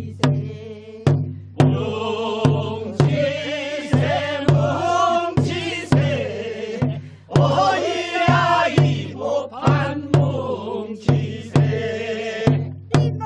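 Group of voices singing a Korean farmers' work song (nongyo) together, over a drum struck in a steady beat about twice a second. The singing comes in about two seconds in and pauses briefly around the middle.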